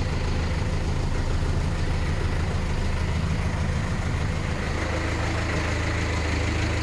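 Vehicle running with a steady low drone, the rear-axle rumble ('ronquido') that the owner is demonstrating. A faint high whine sits over it and grows slightly stronger in the second half.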